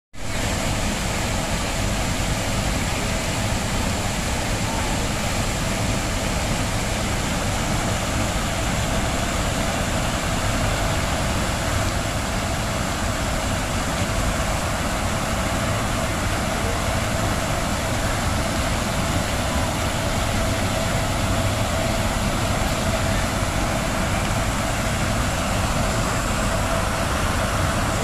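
Steady rushing of a large fountain's water jets, unbroken throughout, with a low rumble underneath.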